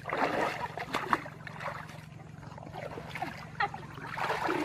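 Water splashing and sloshing as people wade and haul a fishing net through shallow muddy river water, busiest in the first second and again near the end, over a steady low hum.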